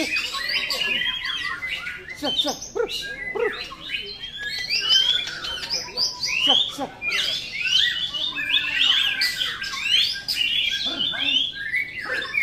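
Several white-rumped shamas (murai batu) singing at once, a dense, loud, continuous tangle of overlapping whistles, rising and falling notes and rapid chirps.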